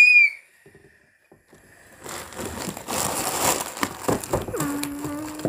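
Plastic cracker packaging crinkling and rustling as crackers are taken out and handled, starting about two seconds in. It opens with a short, loud, high-pitched squeal, and a voice hums one steady note near the end.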